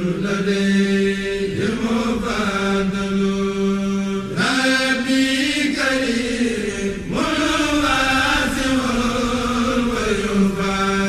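A single voice chanting in long held notes, gliding slowly between pitches with brief breaths between phrases: devotional chanting.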